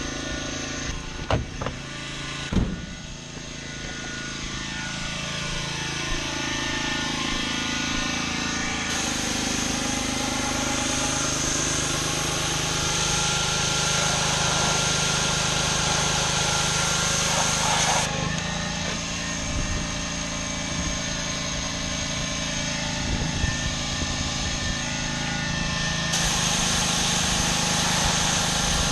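Gas-engine pressure washer running steadily under the hiss of high-pressure water spraying on concrete. Two sharp knocks come in the first few seconds, and the sound changes abruptly a few times.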